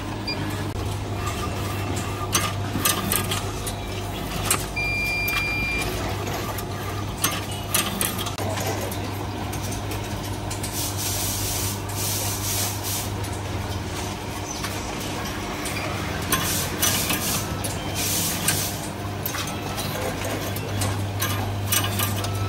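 Automatic tea sachet packing machine running: a steady motor hum under repeated clicks and knocks of its moving parts and short hisses of air. A brief high beep sounds about five seconds in.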